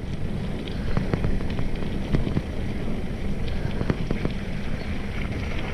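Bicycle rolling over wet cobblestones: a steady low rumble with scattered clicks and rattles from the bike jolting over the stones.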